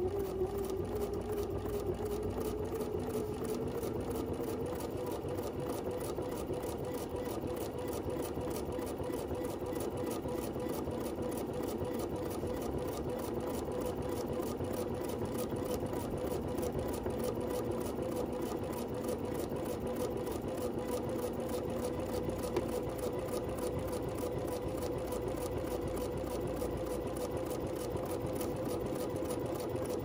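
Domestic sewing machine running steadily as it top-stitches a strap of leather, with the dual feed engaged. Its whir rises in pitch over the first few seconds as it picks up speed, then holds an even speed, with the fast tick of the needle strokes.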